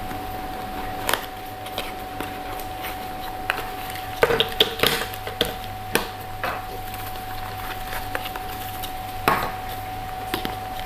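Handling of a small cardboard box and plastic-bagged accessories, with scattered clicks and knocks as the items are set down on a hard tabletop, a cluster of them about four to five seconds in. A steady faint hum runs underneath.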